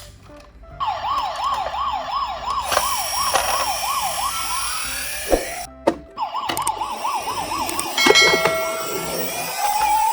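Emergency-vehicle siren in a fast yelp of about three rises a second, which stops briefly after about four and a half seconds and then starts again. A few short beeps come around eight seconds in, and a slower rising-and-falling wail comes near the end.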